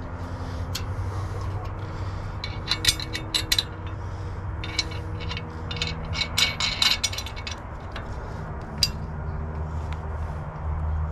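Small metal clinks and light scraping from steel washers, lock washers and nuts being fitted onto bolts and threaded on by hand, coming in several short clusters of clicks.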